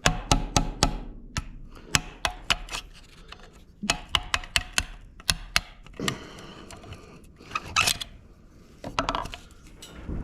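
Hammer blows on a screwdriver driven against a Ford 8N cast cylinder sleeve to crack it loose, sharp ringing metal strikes in quick runs of four or five with short pauses, and some scraping in between.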